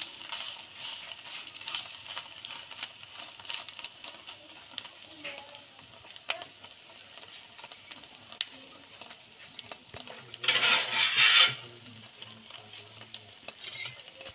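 Roti toasting in a little oil on a black pan: a steady faint sizzle with scattered small crackles. About ten seconds in there is a louder rush of noise lasting about a second.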